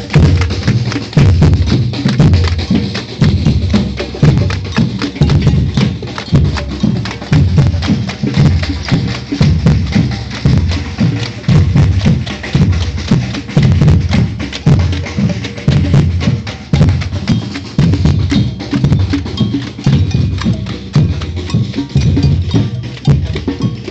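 Batucada, a Brazilian samba percussion ensemble, playing a steady, driving rhythm: deep bass drums under a dense layer of sharp, rapid strokes.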